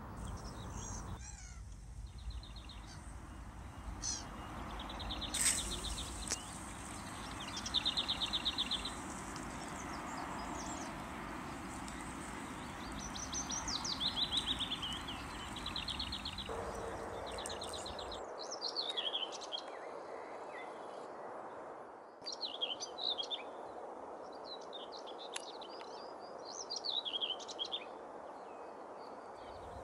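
Several wild birds calling and singing over a steady background rush, with bursts of short rapid trilling calls in the first half and varied songbird phrases in the second half. The background sound changes abruptly a few times where the footage is cut.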